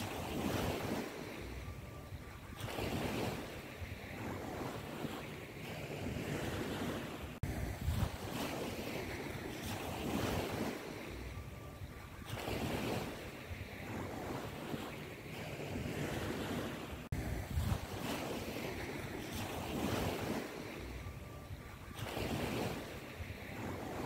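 Surf-like rushing noise that swells and ebbs every two to three seconds, the same stretch repeating about every ten seconds like a looped background track.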